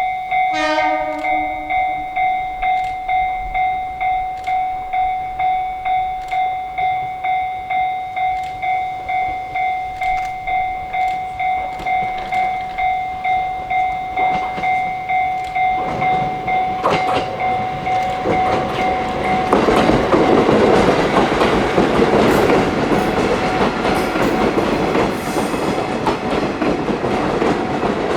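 Level-crossing warning bell ringing in steady pulses, about one and a half a second. About half a second in, a KiHa 40/KiHa 48 diesel railcar train gives a short horn blast. The train's rumble and clickety-clack of wheels over rail joints then build, and from about two-thirds of the way through they drown out the bell as the train passes.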